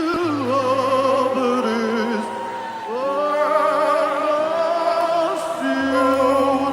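Slow live worship music: sustained keyboard chords under a solo melody sung in long, wavering notes with vibrato.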